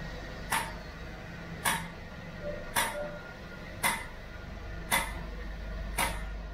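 Six sharp metal taps, evenly spaced about a second apart, from a long-handled metal ladle as brown slurry is ladled over rows of glass crystal balls. A steady low workshop hum runs underneath.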